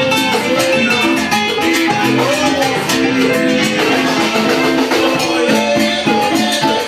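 A Cuban band playing salsa music live, instruments only, with a steady beat.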